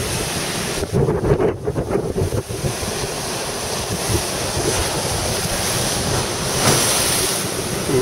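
Rough storm surf breaking and churning as whitewater, with strong wind gusting on the microphone, heaviest in the first couple of seconds. The surf swells louder about seven seconds in.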